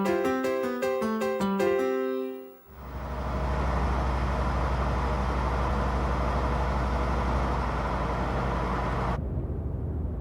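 A short piano-like music cue ends after about two and a half seconds. A steady car driving sound follows, engine and road rumble with a hiss above it. Near the end the hiss drops away, leaving a lower rumble.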